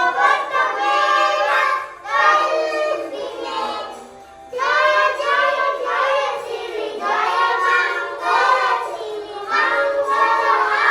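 Young children singing, in sung phrases broken by short pauses about two and four seconds in.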